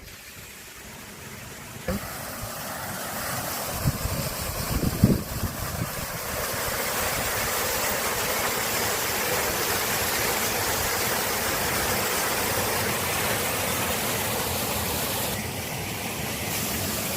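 Waterfall, a steady rush of falling water that grows louder over the first several seconds and then holds level, with a few low thumps about four to five seconds in.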